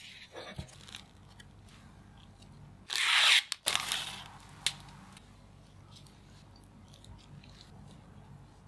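Foil snack packet crinkling loudly for under a second, then rustling again briefly as a wafer roll is handled in it. The rest is faint handling sounds, with one sharp click.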